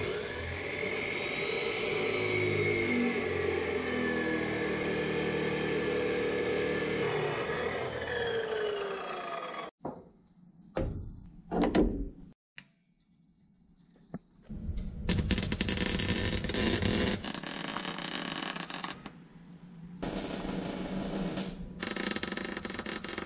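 Abrasive chop saw cutting steel tubing, its pitch falling as it winds down about ten seconds in. A few short knocks follow. Then a MIG welder crackles in three bursts of a few seconds each, welding a steel brace into the truck cab.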